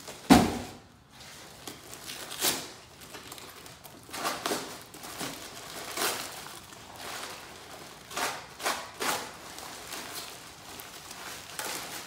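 A loud thud about a third of a second in as the emptied cardboard box is set down, then brown packing paper crinkling and rustling in irregular bursts as it is pulled away from a wrapped carving.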